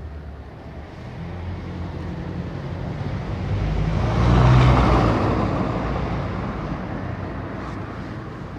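A road vehicle passing by: a low engine and road rumble that swells to its loudest about four and a half seconds in, then slowly fades.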